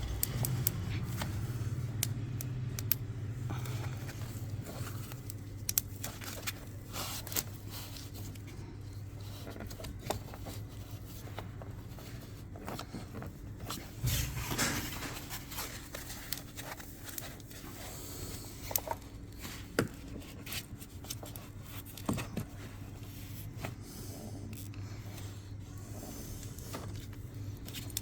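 Thermocol (polystyrene foam) packing pieces being pushed and wedged into the gap of a car door: scattered scrapes, squeaks and small clicks, with a louder scrape about halfway through, over a low steady hum.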